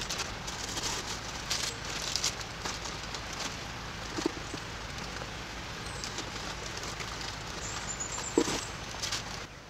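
Steady rain falling, a constant hiss with scattered drops pattering on a surface, and a single soft knock about eight seconds in.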